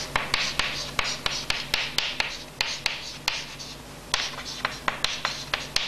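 Chalk writing on a blackboard: a quick run of short scratching strokes broken by sharp taps as the chalk strikes the board.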